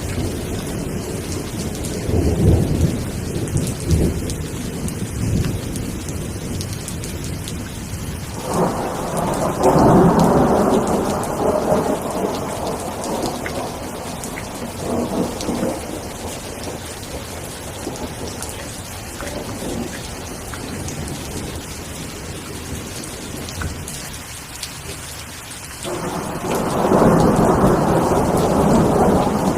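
Steady rain falling, with rolling thunder rumbling through it: a rumble a couple of seconds in, a louder one starting suddenly about eight seconds in and fading away, and another swelling near the end.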